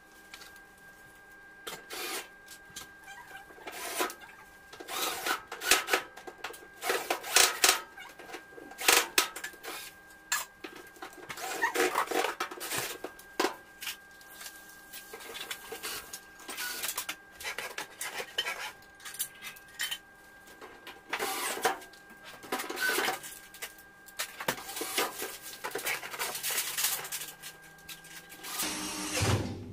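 Cordless drill driving screws into the sheet-metal back panel of a tumble dryer, in many short runs with pauses between, over a faint steady hum that cuts off near the end.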